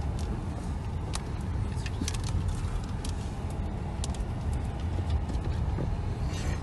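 Subaru driving slowly off-road through snow: a steady low rumble of engine and tyres, with scattered sharp clicks and scrapes of branches against the car's body, a cluster about two seconds in and another near the end.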